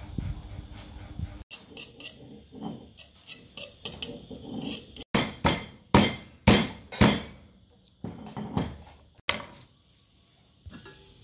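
A pestle pounding lemongrass stalks on a wooden chopping board to bruise them: about six hard thuds in quick succession in the middle, then a few lighter knocks. Before that, softer taps and clicks of food being handled.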